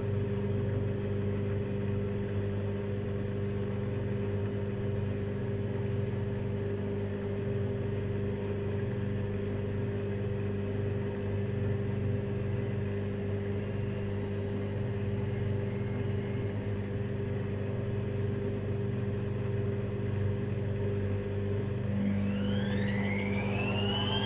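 AEG Lavamat L 1049 washing machine running with a steady motor hum. About 22 seconds in, a whine rises in pitch as the motor speeds up. The machine has the fault of its drive belt slipping off at high speed.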